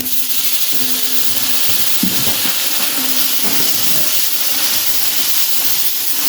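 Curry frying in hot oil in a large pot, a loud steady sizzle.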